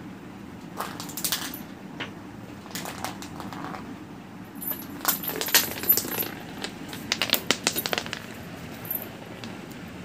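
Jingling and clicking in short bursts as kittens bat a small plastic toy ball across a concrete floor. The busiest stretch is in the middle and toward the end.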